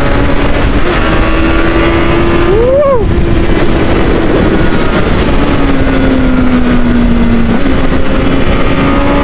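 Honda 600 sport bike's inline-four engine running at speed, its note steady, with one quick rise and fall in pitch about three seconds in, sagging slowly and then stepping up again near the end, over heavy wind rush.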